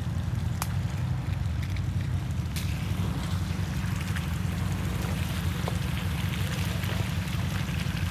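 Ford Maverick FX4 pickup driving over rough off-road ground: a steady low rumble of engine and tyres, with scattered small clicks and knocks.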